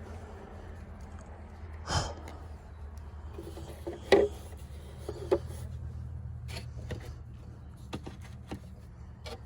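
Scattered knocks and clicks over a steady low hum, the loudest knock about two seconds in.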